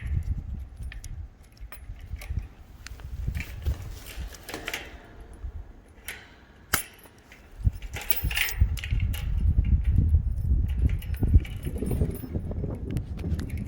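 Metal chain links clinking and rattling as the wire cutters of a Leatherman Wave+ multi-tool are worked onto the chain, with a sharp click about seven seconds in, over a low rumble of handling noise.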